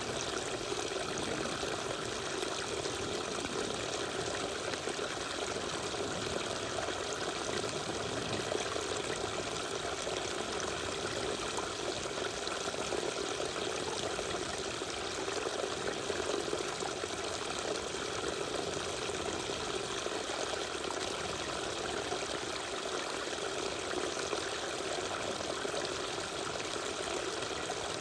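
Small waterfall splashing and trickling in an even, steady rush of falling water.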